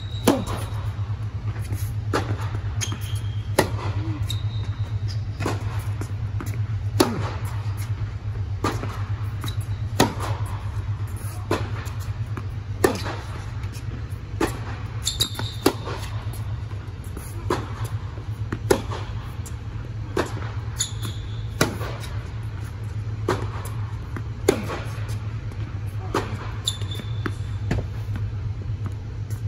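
Tennis rally: sharp racket-on-ball strikes and ball bounces about every second and a half, with now and then a short high squeak of shoes on the hard court, over a steady low hum.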